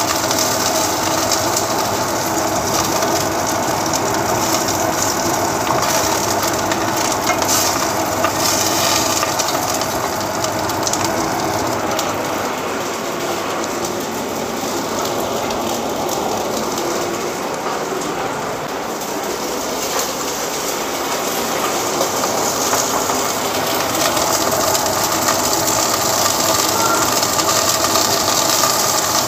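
Lamb pieces sizzling and crackling steadily as they sear and brown in a hot enamelled cast iron pot, with metal tongs turning them near the start and near the end. The sizzle eases a little in the middle and grows again toward the end.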